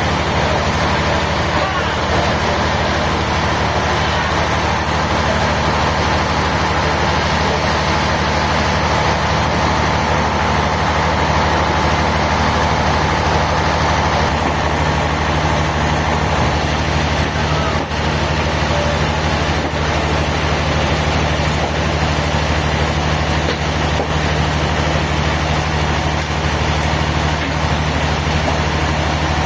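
An engine running steadily with a constant low hum and a loud hiss over it.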